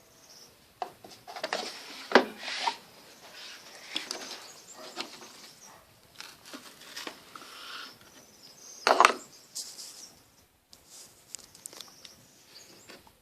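Irregular knocks, clicks and rustling of things being handled, with two louder knocks about two seconds in and about nine seconds in.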